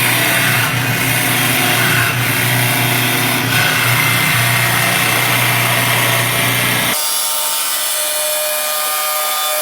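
CNC wood lathe running and cutting into a wooden workpiece: a steady motor hum under a dense rasping cutting noise. About seven seconds in the low hum drops away, leaving a higher whine.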